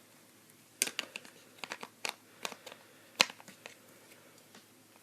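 Hard plastic toy playset pieces being handled and fitted together: an irregular run of sharp clicks and taps, the loudest about three seconds in.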